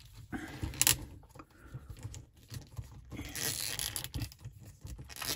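Small plastic clicks and scraping as fingers work a swappable hand onto the wrist peg of a 1:6 scale action figure, with one sharper click a little under a second in and a longer scratchy rub a little past halfway.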